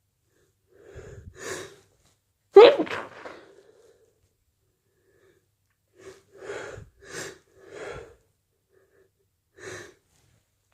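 A person sneezing once, loud and sudden, about two and a half seconds in, after a couple of breathy in-breaths. Later come four short breathy breaths in a row and one more near the end, as the next sneeze builds up.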